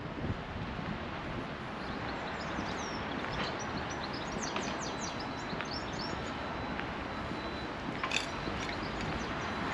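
Small birds chirping several times in the middle, over a steady rushing background noise, with a sharp click about eight seconds in.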